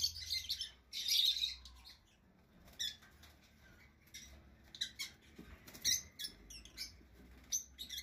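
Lovebird chick cheeping in quick, high-pitched calls, dense for the first two seconds and then short, scattered chirps.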